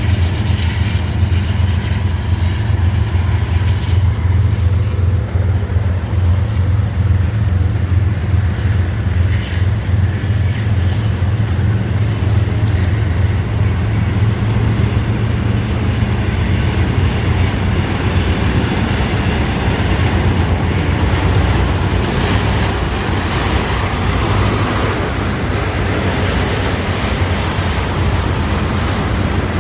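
Train passing: the steady low drone of diesel locomotives, with the rolling, clattering noise of railcar wheels on the rails growing stronger as the drone eases in the last third.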